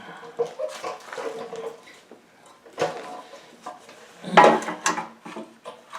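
Metal parts clinking and clanking as the cleaned fuel tank and carburetor are handled and fitted back onto a lawn mower's small engine, in irregular knocks with some brief ringing; the loudest clank comes about four and a half seconds in.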